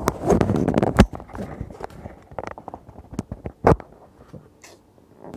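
Irregular knocks and clicks, with a denser clatter in the first second and two loudest single knocks, one about a second in and one a little past the middle.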